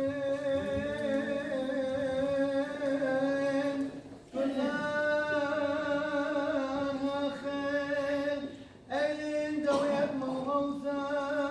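Liturgical chant of the Assyrian Church of the East Mass: a voice sings long, held, slowly wavering notes in three phrases, with short breaks about four and nine seconds in.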